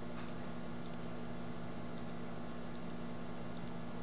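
Computer mouse clicking about five times, roughly once a second, each click a quick double tick, over a steady low hum.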